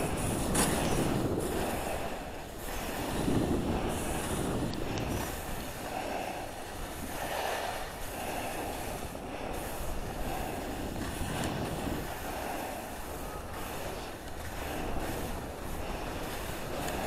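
Skis sliding and scraping over tracked-up packed snow through a run of turns, the noise swelling and easing every second or two, with air rushing past the microphone.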